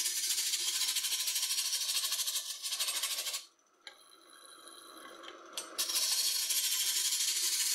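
Chisel cutting into a green oak blank spinning on a wood lathe: a loud, high scraping with a fast, even chatter. About three and a half seconds in the tool lifts off, leaving only the lathe running with a faint steady tone, and the cut starts again about two seconds later.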